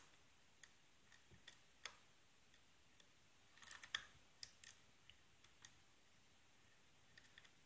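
Faint, irregular metallic clicks and ticks of a lock pick and tension wrench working the pins of a six-pin euro cylinder, with a small cluster of clicks about four seconds in.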